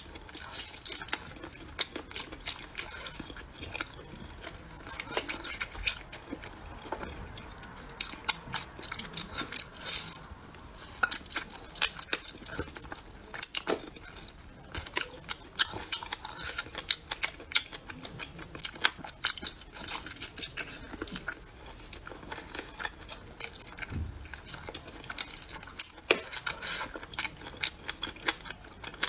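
Close-miked chewing and mouth smacking of braised pork trotter being eaten by hand: irregular wet smacks and sticky clicks, coming thick and fast throughout.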